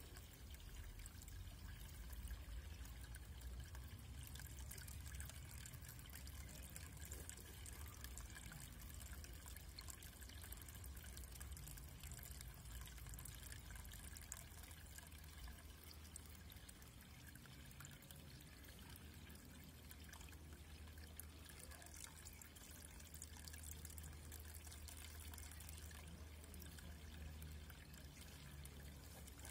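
Faint, steady trickle of garden pond water over a low, steady rumble.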